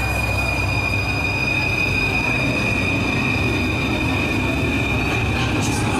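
Loud, steady crowd noise in a ballroom, with a high-pitched squeal held unbroken throughout.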